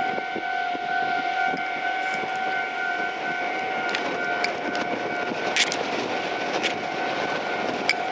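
Japanese level-crossing alarm sounding a steady ringing tone, over a rumbling noise with a few sharp clicks.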